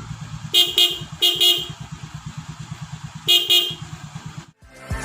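Denso dual-tone electric horn on a Honda Scoopy scooter, sounding two pitches together in three short double toots: two in the first second and a half and one about three seconds in. The scooter's small single-cylinder engine idles underneath with a steady low pulse.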